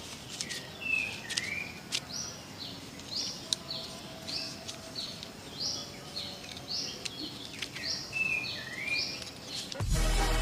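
Small bird chirping repeatedly: short high notes, many sliding down in pitch, about two a second, over a low background hiss. Music with a heavy bass comes in just before the end.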